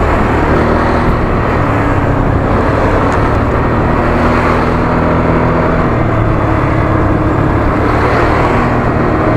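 Steady wind rumble on a motorcycle rider's microphone fitted with a fluffy windscreen cover, with the motorcycle's engine running underneath and its note shifting about halfway through. The wind reaches the microphone through an open-face helmet.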